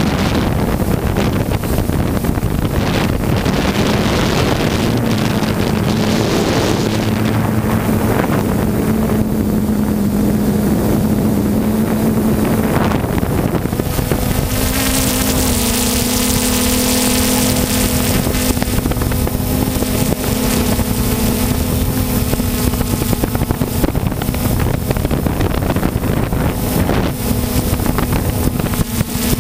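3DR Solo quadcopter's motors and propellers running steadily with a loud buzzing hum, its pitch stepping up slightly about halfway through as the motors speed up, with wind rush on the microphone.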